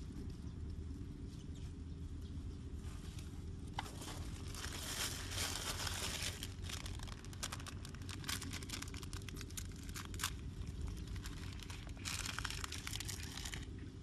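Crinkling and rustling of a plastic bag and grass being handled, in three spells of a few seconds with scattered sharp crackles, over a steady low rumble.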